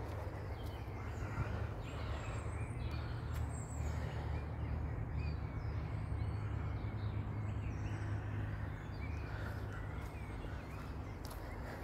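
Birds calling now and then over a steady low rumble.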